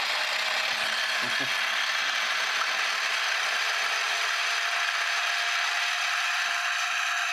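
Small electric motor and plastic gear train of a TOMY Galaxy Pinball toy game running fast under battery power, making a steady, even whirring.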